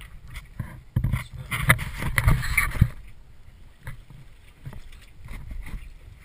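Handling noise from a GoPro being grabbed and moved: rubbing and knocks against the housing, loudest for about two seconds starting a second in, then lighter bumps.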